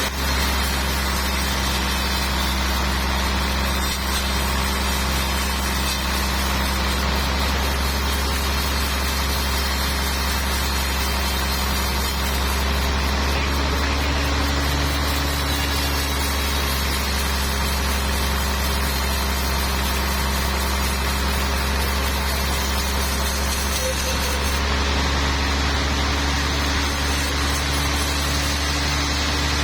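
Sawmill machinery running steadily: a continuous engine drone with a strong low hum that holds even throughout.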